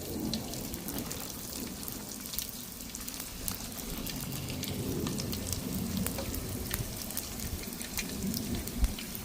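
Hot cooking oil sizzling in an electric frying pan, a steady hiss with many small irregular crackles and pops.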